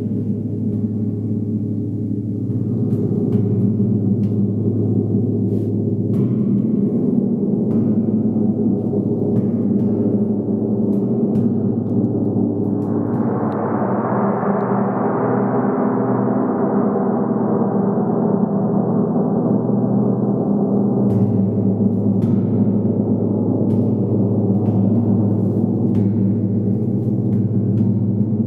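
Large gong played with a felt-headed mallet in a continuous series of soft strokes, giving a sustained low drone. About halfway through it swells into a brighter, shimmering wash, then settles back to the low drone.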